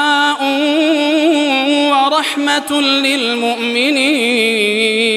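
Male voice chanting Quranic recitation in melodic tajweed style, stretching one word into a long ornamented melisma with the pitch wavering and turning.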